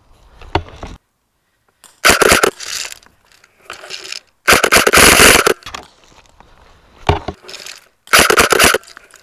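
Loud, harsh scraping and rustling bursts right on the camera microphone, about six of them, each half a second to a second long with quiet gaps between; the longest and loudest comes about halfway through.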